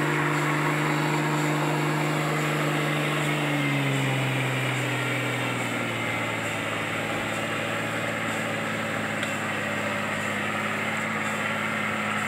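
Off-road 4x4 engine running hard at steady revs while the vehicle is stuck in mud. The revs drop in two steps, about four and six seconds in, then hold at a lower steady note.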